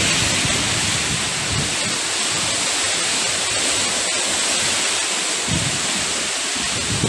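Typhoon wind and rain rushing steadily through palms and trees as a dense, even hiss, with a few low gusts buffeting the microphone a little before the end.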